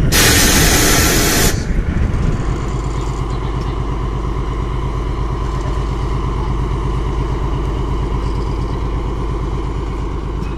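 MÁV M41 diesel-hydraulic locomotive's engine running steadily as it hauls a train of rail-laden flat wagons away. The first second and a half is a loud, hissing rush.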